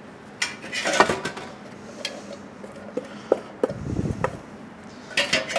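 Stainless steel kitchen containers clinking and knocking as chopped ingredients are tipped out of them into a food processor bowl: scattered separate knocks, with a denser clatter near the end.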